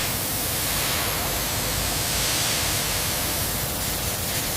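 A steady, even hiss with no pitch, starting suddenly and holding level throughout.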